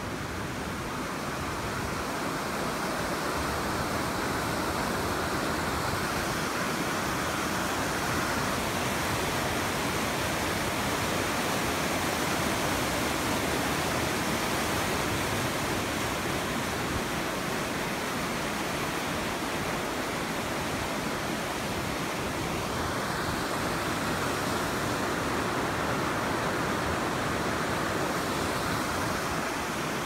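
Steady rushing of the Kern River running high, a continuous even noise that swells slightly in the first two seconds and then holds.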